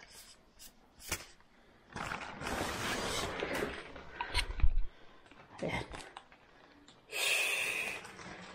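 Rustling and scraping of foam sleeves, plastic film and packing tape as foam-wrapped bicycle frame parts are handled and unwrapped. There are a few sharp clicks early on and a longer, steadier scrape near the end.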